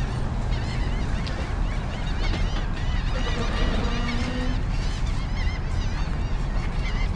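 A flock of birds calling, many short chirping calls overlapping one another, over a steady low rumble.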